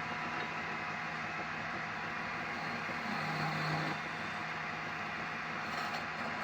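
Wood lathe running with a steady mechanical whir and hiss; a low hum swells briefly a little past the middle.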